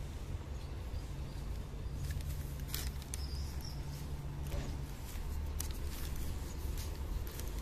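Street ambience: a low steady hum and rumble, with scattered light clicks from about two seconds in.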